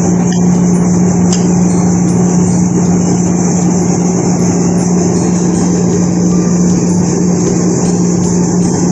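Steady mechanical hum of a running motor: a constant low tone over an even rushing noise, with a couple of faint clicks in the first second or two.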